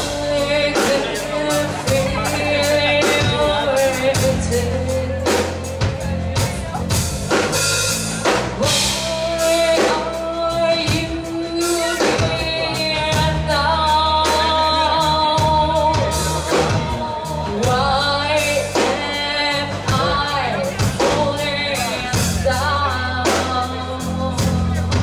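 Rock band playing live, a singer's sustained melody over drum kit and bass.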